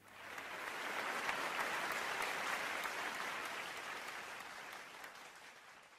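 Audience applauding, building over about the first second and then gradually fading out.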